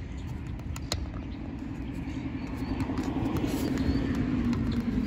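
Low rumble of a vehicle crossing the concrete road bridge overhead, growing louder toward the end.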